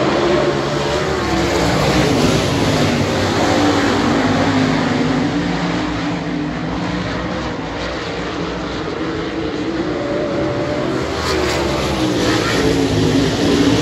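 A pack of 410 winged sprint cars racing, their methanol-burning V8 engines rising and falling in pitch as they lap. The sound dips in the middle and swells again near the end as cars come down the straight toward the listener.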